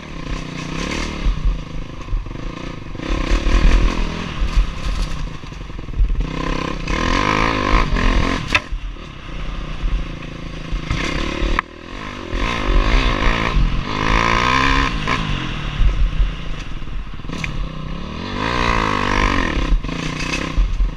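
Honda dirt bike engine revving hard, rising and falling in pitch again and again as the rider works the throttle and gears, with rattling from the bike over rough trail. Heard from the rider's helmet.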